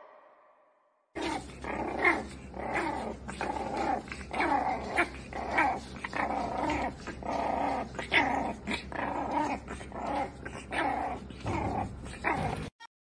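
Two puppies play-fighting, giving a rapid run of short, high growls and yaps, several a second. It starts about a second in and cuts off suddenly near the end.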